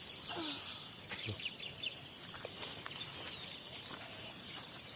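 Steady high-pitched chirring of insects, with a few faint short chirps and small clicks over it.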